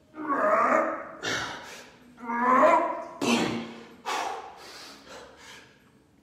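A man breathing hard under exertion during push-ups. He gives forceful exhales about once a second, and two of them come out as voiced grunts.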